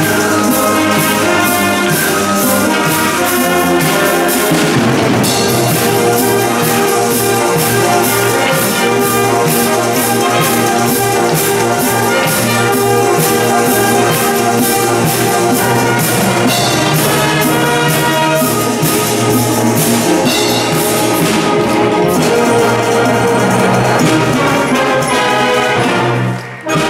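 Junior high school wind band playing a pop-song arrangement, with trumpets and trombones over a drum kit keeping a steady beat. The band cuts off together on a final note near the end.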